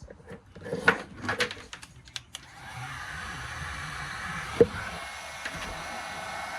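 A few clicks and taps of handling, then about two and a half seconds in an electric heat gun switches on and runs with a steady blowing rush, heating solder-seal heat-shrink wire connectors; a single sharp click sounds midway through.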